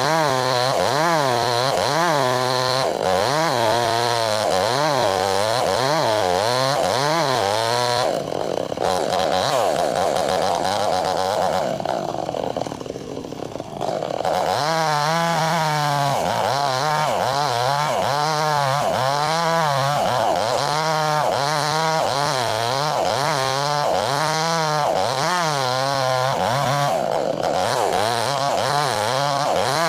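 Chainsaw running under load as it cuts lengthwise through a log to split it, its engine pitch wavering up and down as the cut bites. About eight seconds in the wavering stops for a few seconds and the saw goes briefly quieter near fourteen seconds, then it goes back into the cut.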